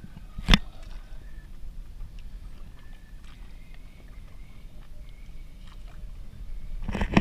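Small wooden canoe being paddled on calm sea, with no engine: a low steady sound of water and wind, one sharp knock about half a second in, and louder noise building near the end.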